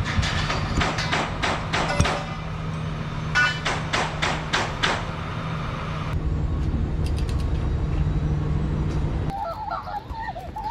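A steady mechanical hum with two bursts of sharp taps, several a second, while a new bronze propeller is fitted onto a sailboat's shaft in a boatyard. After a cut near the end come short high squeaks that rise and fall in pitch.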